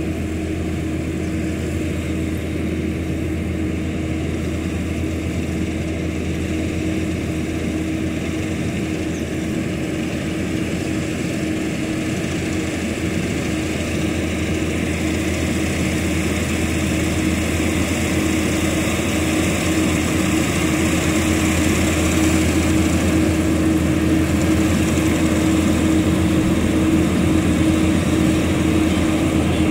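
Kubota rice combine harvester running as it cuts rice: a steady engine and machinery drone that grows louder in the second half as the machine comes closer.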